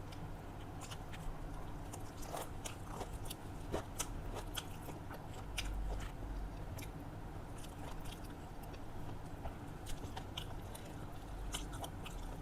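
Close-up chewing and biting of rice and fried vegetables: irregular wet mouth clicks and smacks with occasional crunches, over a steady low hum.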